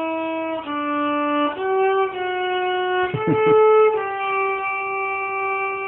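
Violin playing a slow melody of long held notes, each lasting about a second, with a brief scratchy slide between notes about three seconds in.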